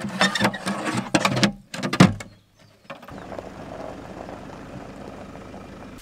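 Knocks and clatter for about the first two seconds, then from about three seconds in a pickup truck's engine running steadily.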